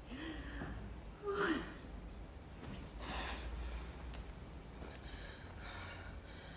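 A woman crying: a short whimper, then a higher sob that falls in pitch, followed by gasping, sighing breaths.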